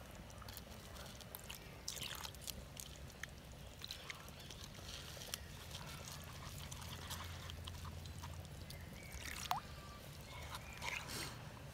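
Faint sounds of water poured into a clay pot of chilli powder, then fingers mixing it into a thin paste, with soft wet sloshing and scattered light scrapes on the clay.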